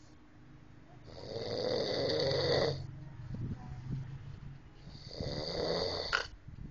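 Snoring: two long snores, one about a second in and one near the end, each lasting a little under two seconds with a high hiss over a lower rumble. The second snore ends in a short click.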